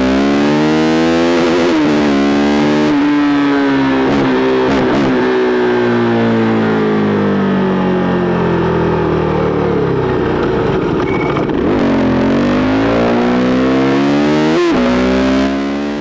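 KTM RC390's single-cylinder engine running through an SC Project replica exhaust. Its pitch wavers with the throttle, falls slowly for several seconds as the bike slows, then climbs again under acceleration, with a brief sharp break about a second before the end.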